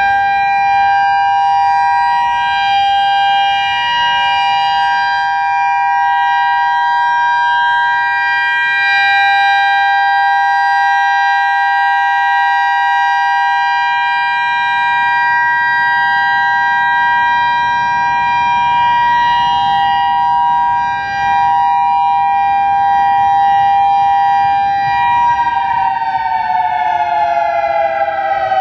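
Federal Signal EOWS 612 electronic warning siren, its rotating six-horn array sounding the steady Alert signal: a held two-tone chord that falls steadily in pitch near the end as the signal winds down.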